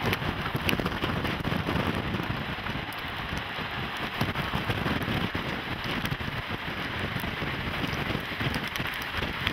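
Rain and storm wind beating on a moving chase vehicle beside a tornado: a steady rushing noise with many scattered sharp taps of drops or small stones striking it.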